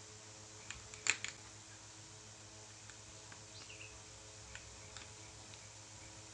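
A quick cluster of small clicks and taps about a second in, then a few single ticks, from fitting a rubber flip-flop disc and its lock nut onto the spindle of a switched-off angle grinder by hand. A steady low hum runs underneath.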